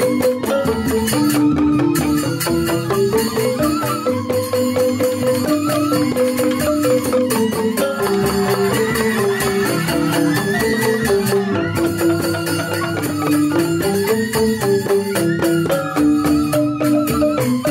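Balinese joged bumbung gamelan playing: bamboo grantang xylophones in fast repeated, interlocking notes, with bamboo suling flutes carrying a wavering melody above and a kendang drum.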